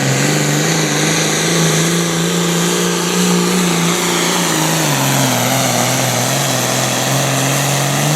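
John Deere Pro Farm pulling tractor's turbocharged diesel engine running hard under load as it drags the weight sled down the track. The pitch rises just after the start, holds, drops about five seconds in, and the engine note cuts off near the end.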